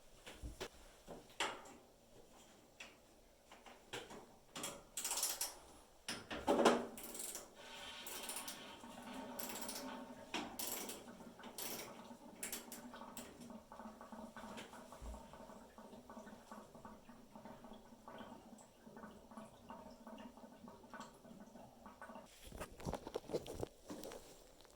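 A few clicks and knocks, then from about seven seconds in a steady rush of central heating water draining out of a combi boiler's opened drain valve through a hose into a bucket.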